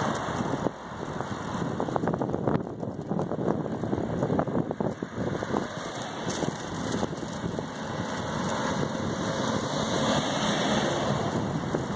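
Wind rushing and crackling on the microphone while moving, over the noise of traffic on the road alongside; a bus passes close by about ten seconds in.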